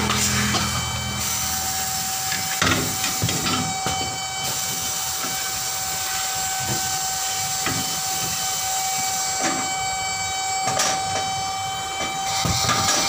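Steady compressed-air hiss with a steady whine at a pneumatic tyre changer while its bead breaker blade presses into the tyre sidewall. Scattered knocks and rubs come as the tyre is turned by hand to break the bead, the sharpest about three seconds in and again near eleven seconds.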